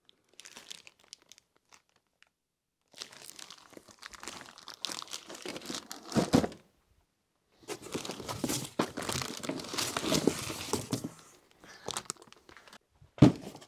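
Plastic packaging crinkling and rustling as it is handled, in two long stretches, with a single thud near the end.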